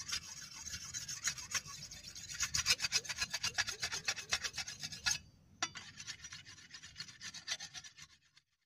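Sickle blade being sharpened on a whetstone: quick, even strokes several times a second. They break off briefly about five seconds in, then come more sparsely and stop.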